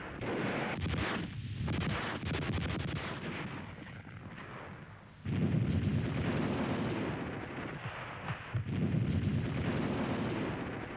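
Battle sounds of gunfire and explosions: a rattle of shots in the first seconds, then a sudden loud blast about five seconds in and another about three seconds later.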